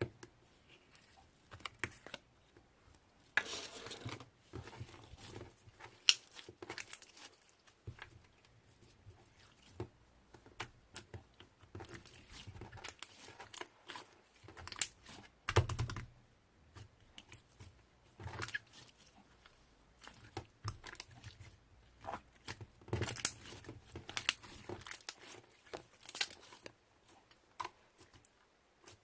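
Slime being played with by hand: stretched, pressed and poked, giving irregular crackling, clicking and tearing sounds, with a heavier squashing thump about halfway through.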